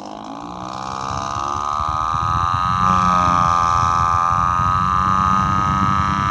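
Electric desk fan on its high setting, its speed held back by a finger pressed against it and then let go to "full throttle": a rising whine with a fast rattling pulse beneath it, climbing for about three seconds and then holding steady at top speed, like a two-stroke Detroit Diesel revving up.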